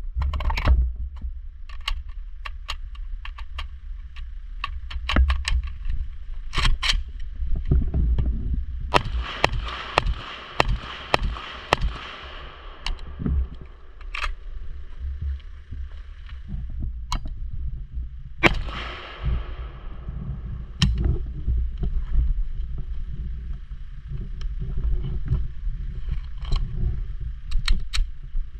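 Irregular series of rifle shots from an AK-pattern rifle, many sharp cracks through the stretch, some in quick pairs and some with longer gaps, over a steady low rumble.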